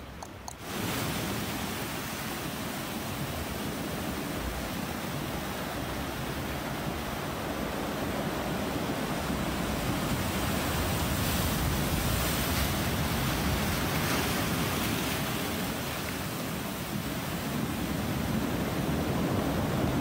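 Ocean swell breaking and washing over a beach of round black boulders and stones, a steady roar of surf that starts suddenly about a second in.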